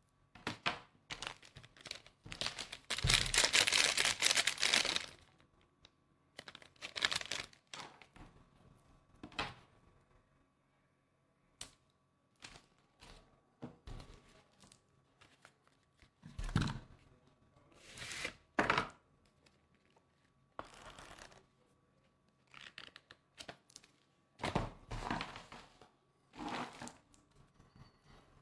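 Handling noise: irregular rustling, crinkling and small knocks of objects being handled close to the microphone, coming in bursts with short pauses, the longest and loudest about three to five seconds in.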